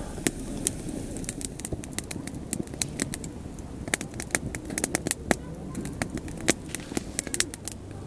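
Hardwood campfire crackling: many sharp, irregular pops and snaps, several a second, over a soft low rush.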